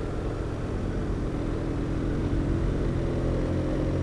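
BMW R1200RT's boxer-twin engine running steadily under way, heard with the rush of wind and road noise; the engine note rises a little partway through.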